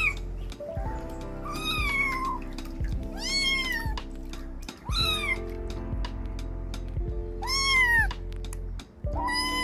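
Kitten meowing repeatedly: about five high, short meows that rise and fall in pitch, a second or so apart, over background music.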